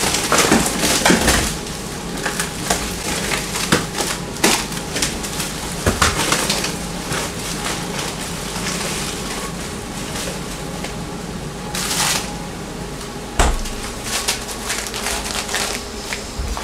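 Beef, shrimp and vegetable stir-fry sizzling and crackling in a hot nonstick pan, while a spatula scrapes and knocks against the pan as the food is tossed, with several louder scrapes and knocks along the way.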